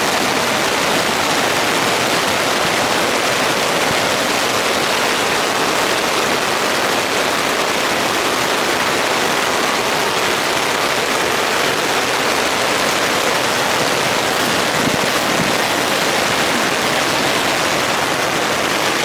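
Heavy rain pelting a tent's nylon rain fly, a steady, dense hiss of drops heard from inside the tent.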